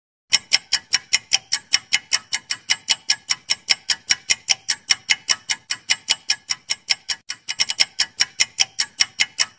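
Clock-ticking sound effect marking a quiz's answer timer: fast, even, sharp ticks at about five a second, beginning just after the start, with a brief stumble of closer ticks about three-quarters of the way through.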